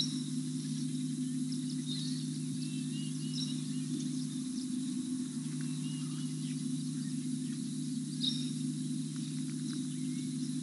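Outdoor bush soundscape: a steady low hum underneath scattered short, high chirps and calls, at the start, about two seconds in, and about eight seconds in.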